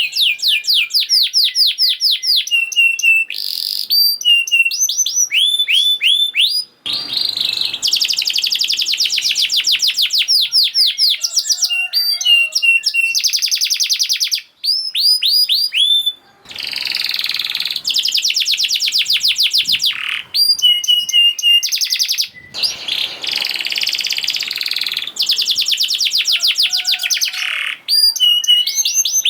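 Domestic canary singing a fast, tightly packed song ('gacor speed rapet'): long rapid trills of repeated notes alternating with quick falling whistles, broken by a few brief pauses.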